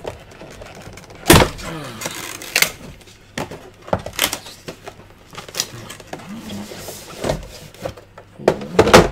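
A box and its packaging being opened and handled during an unboxing: irregular sharp knocks, scrapes and rustles, the loudest about a second in and a cluster near the end.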